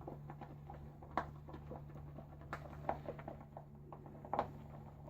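Badger-hair shaving brush working wet shaving lather: a soft, irregular wet patter of small clicks, with a few louder clicks spaced through it.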